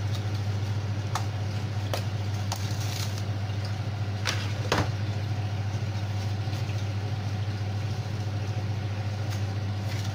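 A steady low machine hum throughout, with a few short crackles of plastic cling film being pressed and smoothed over a glass dish.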